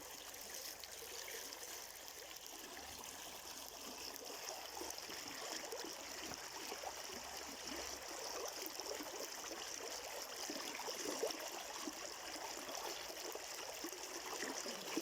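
Mountain river flowing over rocks, a steady rushing with small gurgles and splashes.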